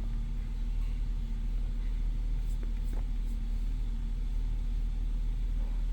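Car engine idling: a steady low rumble with a faint steady hum over it.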